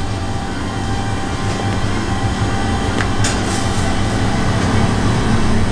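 Steady low mechanical hum and rumble, with a faint tick or two about three seconds in.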